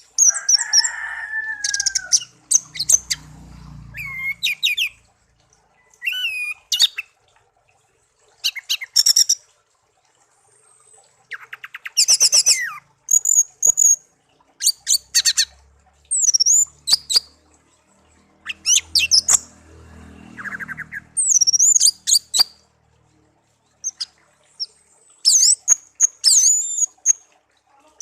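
A pet songbird singing: a varied run of short phrases of high whistles, rapid trills and gliding chirps, broken by brief pauses.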